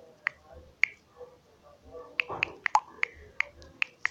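Sharp, irregular taps of typing a message on a smartphone touchscreen: two taps, then a quicker run of taps from about two seconds in.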